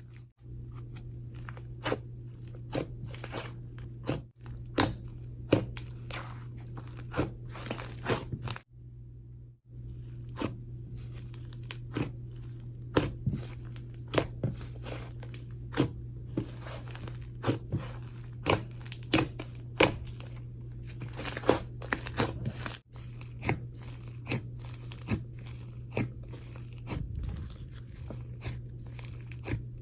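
Hands squishing, stretching and pressing a soft, fluffy clay jelly slime, making frequent irregular sharp pops and clicks over a steady low hum.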